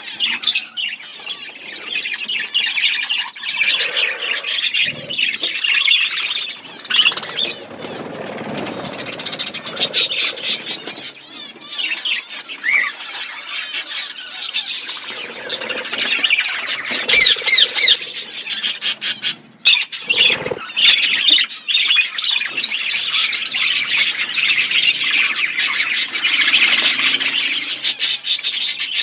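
A flock of budgies chattering and chirping continuously, many calls overlapping, with occasional wing flutters and sharp clicks.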